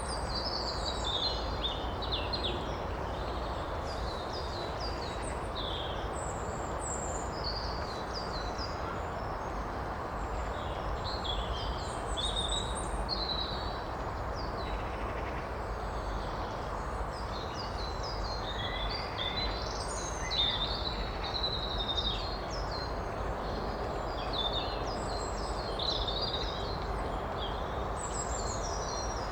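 A woodland stream running steadily, with several small birds singing and chirping over it throughout.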